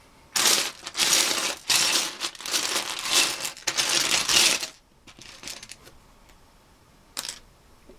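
Loose plastic Lego bricks clattering as a hand rummages through a pile of them: a dense rattle for about four seconds, then a few scattered clicks.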